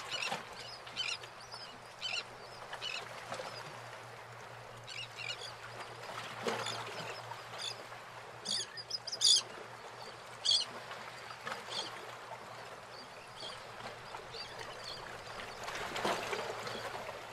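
Birds calling: short calls at uneven intervals, the loudest few a little past the middle, over a faint steady hiss.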